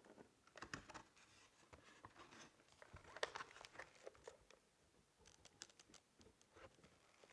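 Faint handling sounds of a gaming keyboard being unboxed: scattered clicks, taps and rustles of packaging, in a few clusters, the loudest a little past three seconds in.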